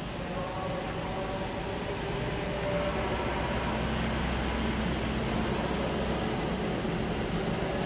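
A steady engine hum over an outdoor background noise, slowly getting louder.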